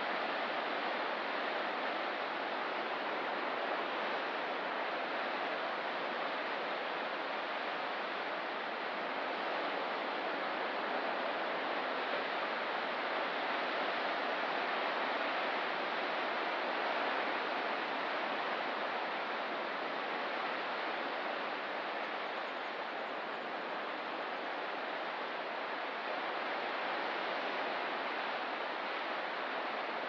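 Ocean surf heard as a steady wash of noise, with no separate wave breaks, only slight slow swells in loudness.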